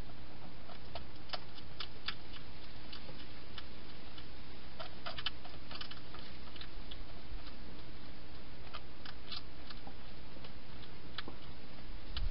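Wild hedgehog eating from a bowl: small, irregular crunching clicks as it chews, over a steady low hiss and hum.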